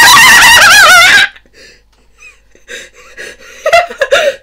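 A woman's very loud, high-pitched, wavering shriek of laughter that breaks off about a second in, followed by breathless bursts of laughter and gasps.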